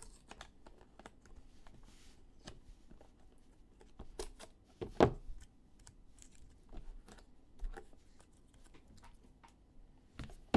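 Trading cards and their packaging being handled on a table: scattered light clicks and rustles, with one sharper click about halfway.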